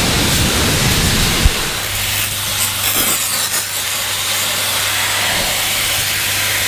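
Ryobi 1700 PSI electric pressure washer's jet spraying a car's alloy wheel and the wet driveway: a steady, loud hiss. A steady low hum joins about two seconds in.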